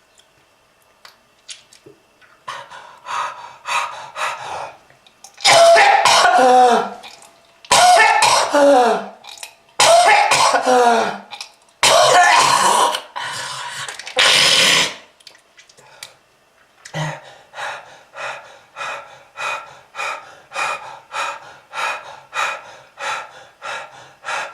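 A person coughing repeatedly. Four long, loud coughing fits come in the first half. From about two thirds of the way in, a steady run of short coughs follows at about two a second.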